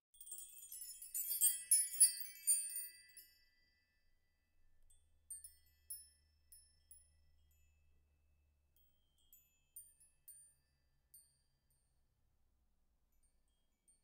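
High, bright tinkling chimes: a dense shimmer for about the first three seconds, then thinning to scattered single tinkles that die away by about eleven seconds in.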